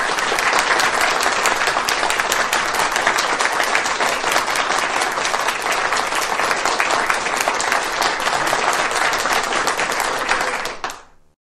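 Audience applauding, many hands clapping together in a steady dense patter that fades out near the end.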